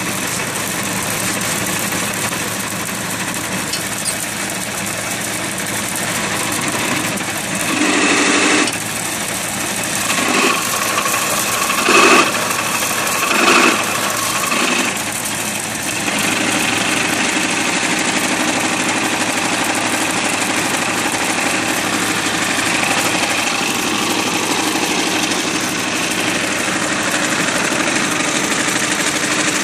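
Farmall tractor engine running steadily as it drives an antique burr mill grinding soybeans, with the mill's mechanical rattle and vibration. Several short, louder bursts come between about eight and fifteen seconds in.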